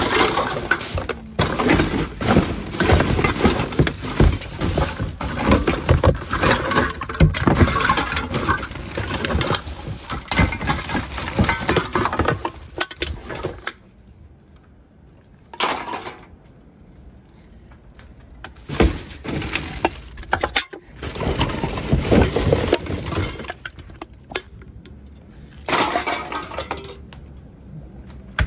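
Rummaging through household trash in a plastic garbage bin: cardboard, egg cartons, paper and plastic packaging being pushed aside and lifted, rustling, crinkling and clattering. The handling is busy and continuous for about the first half, then drops to a few short bursts.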